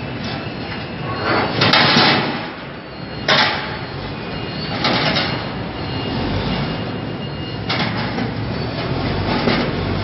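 Steel fabrication workshop noise: a steady din broken by about five short, louder hissing bursts, each lasting under a second.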